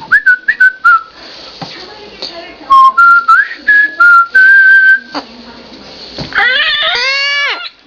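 Pet cockatoo whistling a short tune of clear held notes that step up and down in pitch, then near the end giving a louder call that rises and falls.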